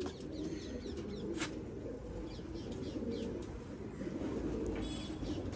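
Domestic pigeons cooing, a continuous low wavering murmur.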